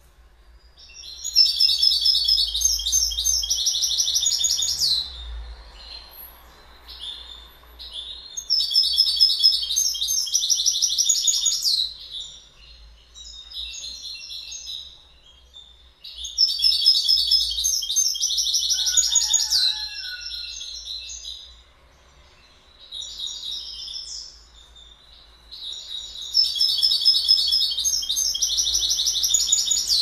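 European goldfinch singing: four high-pitched phrases of fast, rapidly repeated notes, each three to four seconds long, with quieter twittering between them.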